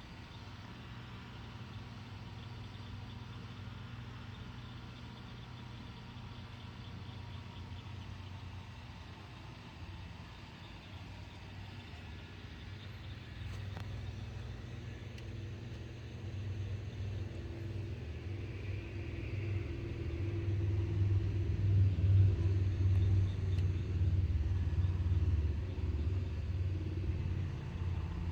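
Low, steady rumble of a car running, growing louder over the last third.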